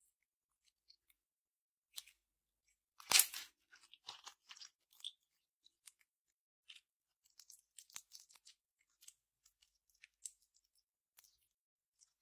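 Glossy slime being stretched and pulled by hand, making small sticky clicks and crackles, with one louder burst about three seconds in.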